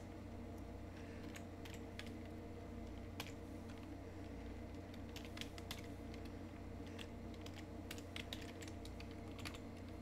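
Typing on a computer keyboard: a few scattered keystrokes, then quicker runs of clicks in the second half, faint over a low steady hum.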